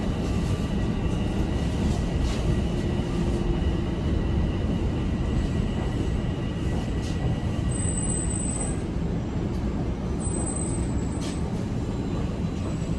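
TTC Line 1 subway train running with a steady rumble as it arrives at its terminal station, with two brief high-pitched squeals about eight and ten seconds in.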